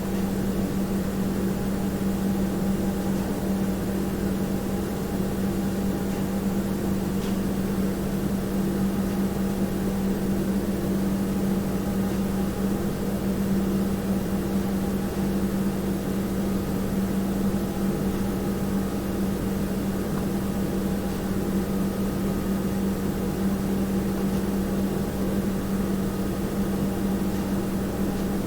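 Household room tone: a steady, unchanging mechanical hum with a strong low drone and a faint hiss.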